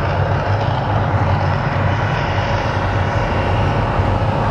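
Steady, loud low rumble with a broad rushing noise from the Mirage volcano show.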